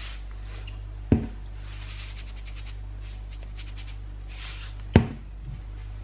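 Two sharp metallic clinks of a kitchen utensil, about four seconds apart, each ringing briefly, with faint scraping between them, over a steady low hum.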